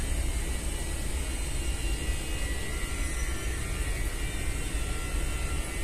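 Steady low rumble with hiss underneath, unchanging, with no distinct event.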